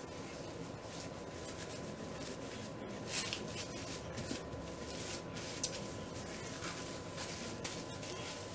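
Plastic wrap crinkling and rustling as hands press and smooth a disc of pie dough wrapped in it, with a few sharper crackles, over a faint steady high hum.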